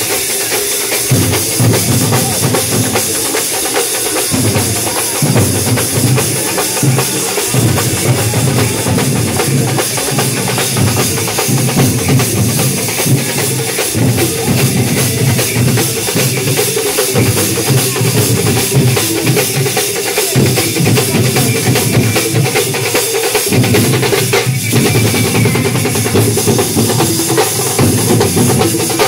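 A festival drum troupe beating large strap-hung drums with sticks, playing a loud, continuous rhythm with heavy low beats.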